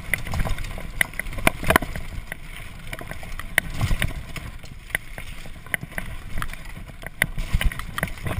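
Mountain bike descending a rough forest trail at speed: tyres running over dirt and gravel with a low rumble, wind on the microphone, and frequent sharp knocks and rattles as the bike hits bumps.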